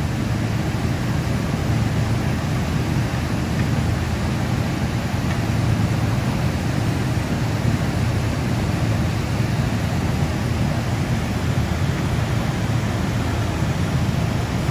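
Steady rushing background noise with a low hum, even throughout, with no distinct tool clicks or metal knocks.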